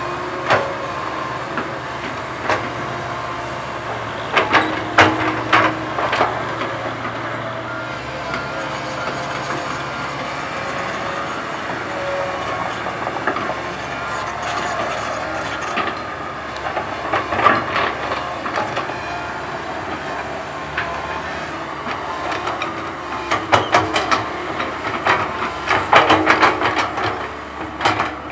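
Komatsu PC130 hydraulic excavator working, its engine and hydraulics running steadily, with clusters of metallic clanks and rattles from the machine several times.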